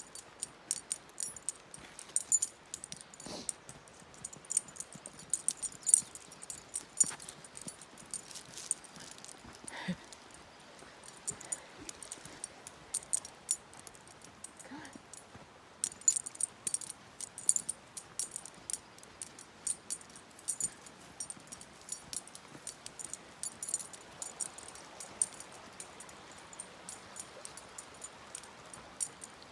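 Metal tags on a dog's collar or harness jingling in quick, irregular clinks as the dog trots along the trail, easing off briefly about halfway through.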